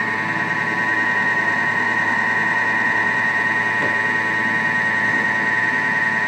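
Vorwerk Thermomix motor running steadily at speed 4, its blade mixing flour, fat and liquids into a crumbly dough, with a steady high whine.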